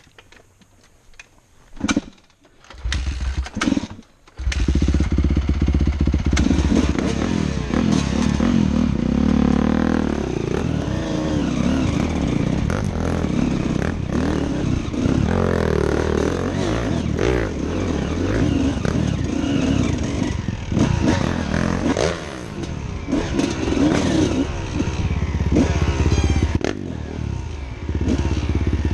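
Suzuki RM250 two-stroke dirt bike engine started about two seconds in, catching after a brief stumble near four seconds, then ridden off with the engine revving up and down as the rider works the throttle.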